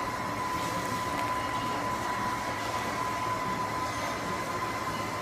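Steady food-court background noise: an even rumbling hum with a constant high-pitched whine running through it.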